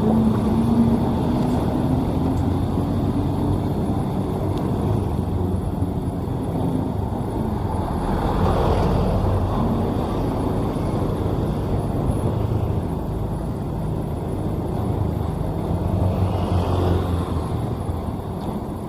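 Diesel engine of a Sakai asphalt paver running steadily as the machine travels, with the noise swelling twice, about halfway through and again near the end.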